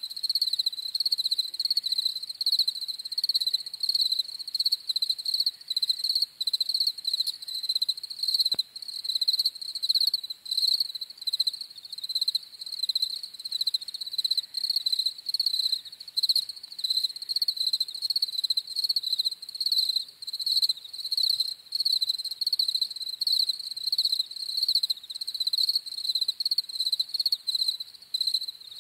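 A chorus of European field crickets chirping steadily at night, a dense pulsing high-pitched trill that never stops.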